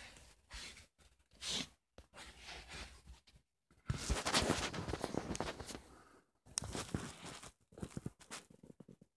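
Handling noise: rustling, scraping and light knocks as diecast model trucks are moved about on a carpet. It is loudest in a dense stretch from about four to six seconds in.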